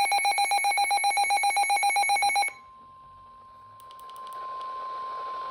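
Weather alert signals: a fast-pulsing, high electronic alarm beep cuts off about two and a half seconds in. A faint steady single tone with radio hiss follows; this is the NOAA Weather Radio 1050 Hz warning alarm tone that heralds a severe thunderstorm warning.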